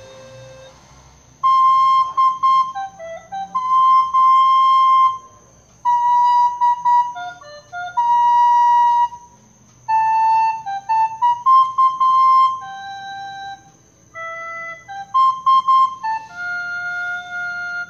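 Solo flute-like wind instrument playing a slow melody of held single notes in four short phrases with brief pauses between them.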